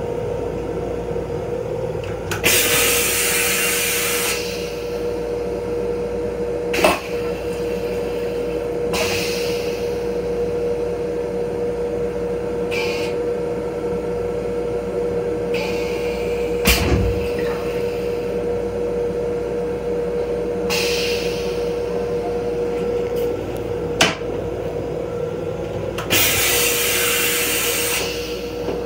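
Inside a Metro-North M7 railcar's restroom: a steady hum and low rumble from the running train, broken every few seconds by short hissing bursts, with a few sharp knocks.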